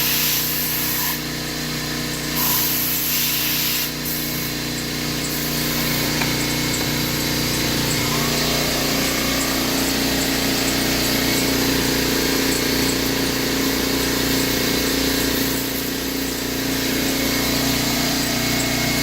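Tormach 1100 CNC mill's automatic tool changer running a tool change: several short hisses of air in the first five seconds over the machine's steady hum, which shifts in pitch about seven seconds in and then runs on steadily.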